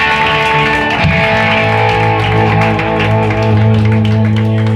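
Loud rock walk-on music with guitar, sustained chords changing about a second in.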